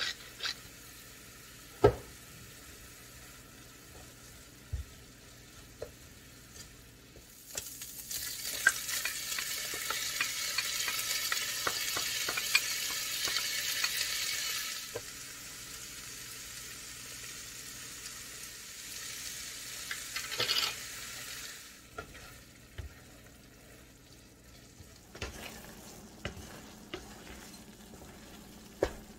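Ground meat sizzling in a frying pan, with a wooden spatula scraping and knocking as it is stirred. A few quick clicks from a wooden salt mill come right at the start, and the sizzle is loudest for about seven seconds from roughly a quarter of the way in, then settles to a softer hiss.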